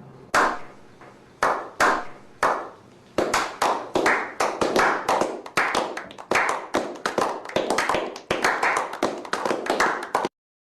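A run of sharp clap-like hits: spaced about half a second apart at first, then coming faster and unevenly, around three a second, until they stop abruptly.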